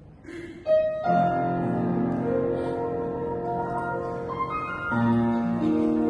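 Piano starting a song's introduction about a second in, with held chords and a new chord near the end.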